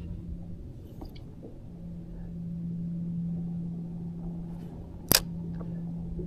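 Steady low hum of a bass boat's electric trolling motor over a low rumble, with a few faint ticks and one sharp click a little after five seconds in.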